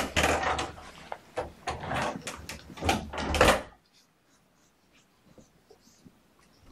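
Clattering and scraping of a cat litter box being changed out: plastic handling and litter noise in a dense run of knocks and rasps that stops suddenly about four seconds in, leaving only a few faint ticks.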